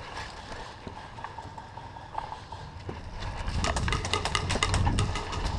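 Footsteps of a person running, the steps getting louder and denser about three and a half seconds in, over a low rumble.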